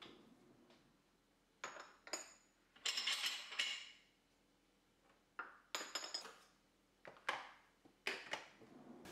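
Metal cutlery and kitchen utensils clinking and clattering as they are put away into a wooden drawer organizer, in several short bursts. The loudest comes about three seconds in.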